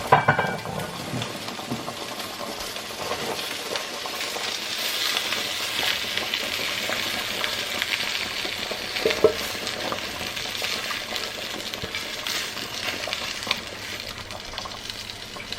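Pot of water at a boil with a steady sizzling hiss, while a spoon scrapes and clicks against the skillet and pot as browned sausages and garlic are scraped in and stirred. A loud clatter of utensil on pan comes right at the start.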